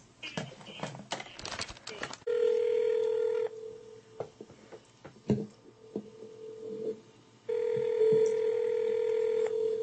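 Ringback tone of an outgoing phone call waiting to be answered. A steady ringing tone sounds twice, about five seconds apart, after a few clicks at the start.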